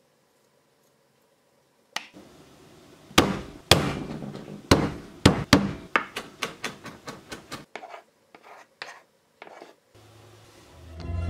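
A series of sharp, irregular knocks and taps, several in quick succession, thinning out to a few faint taps. Music fades in near the end.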